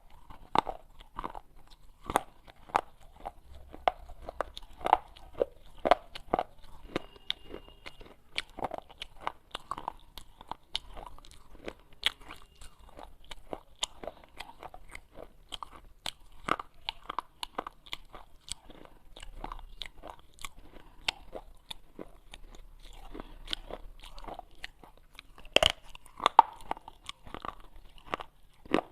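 A person biting and chewing pieces of baked clay pot: rapid, irregular crunching and crackling, with a louder bite near the end.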